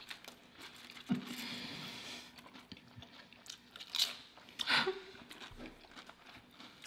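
Potato chips being bitten and chewed, crisp crunches with the loudest pair about four and five seconds in.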